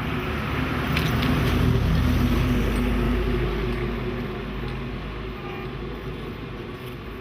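A motor vehicle passing on a city street at night, its engine and tyre noise rising to a peak about two seconds in, then slowly fading away.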